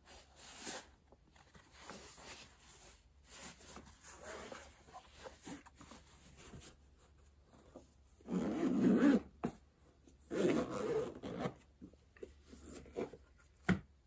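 Packaging and camera accessories being handled: light rustling and rubbing, with two louder sliding, rubbing sounds of about a second each, one about eight seconds in and one about ten seconds in, and a sharp click near the end.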